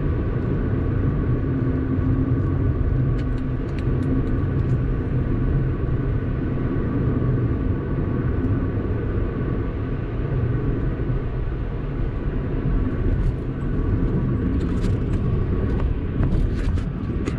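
Car driving at a steady speed: a steady low rumble of road and engine noise. Faint clicks and ticks come in near the end.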